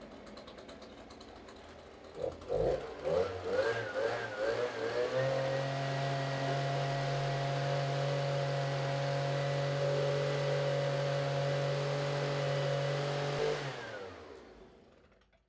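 A handheld two-stroke petrol leaf blower starts up about two seconds in and revs unevenly for a few seconds. It then runs at a steady high speed, and near the end it is shut off and winds down to a stop.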